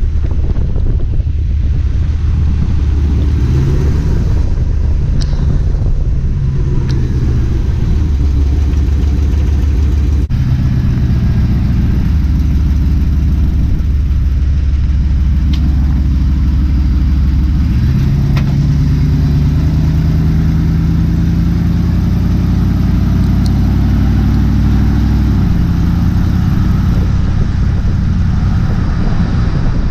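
Dodge Ram van's V8 engine and road noise while driving: a steady running sound whose pitch climbs slowly a little past halfway through, then drops back.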